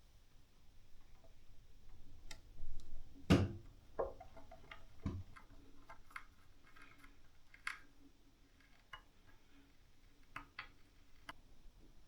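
Scattered clicks and light knocks of hard objects being handled, the loudest a single thump about three seconds in.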